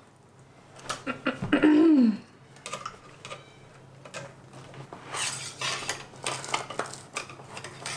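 Metal clicks and scrapes of a cleaning rod and rifle being handled as a solvent-wet patch is run through a Tikka T3 rifle's barrel, coming thickest in the second half. A short falling vocal sound about a second and a half in.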